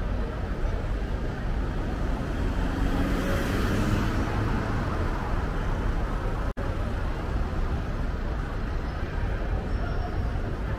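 Busy city-street traffic noise, a steady low rumble of passing vehicles, with one vehicle swelling louder as it passes about three to four seconds in. The sound cuts out for an instant about two-thirds of the way through.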